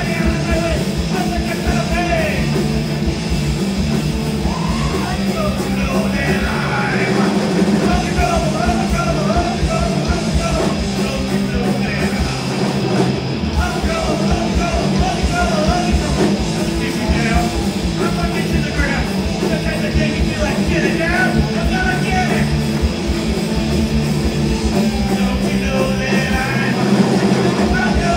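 Hardcore punk band playing live at full volume: electric guitars, bass guitar and drums, with a singer shouting the vocals into a microphone.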